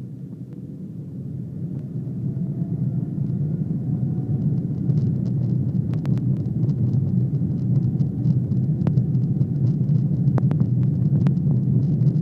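Boeing 777 jet engines spooling up for takeoff. The rumble rises over the first few seconds with a faint climbing whine, then settles into a steady heavy rumble of the takeoff roll, with scattered sharp rattles and knocks from about five seconds in.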